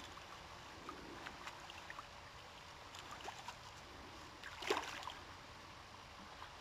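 Faint flowing creek water with scattered small ticks, and one brief louder splash a little over four seconds in, as a hooked brown trout thrashes at the surface close to the bank.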